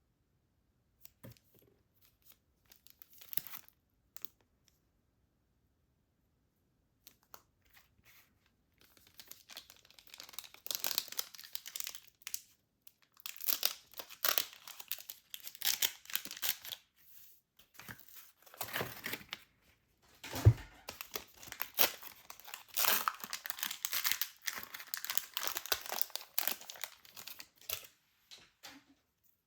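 Trading card blister-pack packaging being torn open: a few small handling noises, then long stretches of tearing and crinkling, with one sharp knock about two-thirds of the way through.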